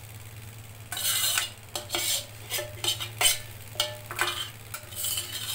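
Metal ladle stirring thick blended lentil soup in a stainless-steel pot, scraping and knocking against the pot in a run of short strokes that start about a second in. A steady low hum sits underneath.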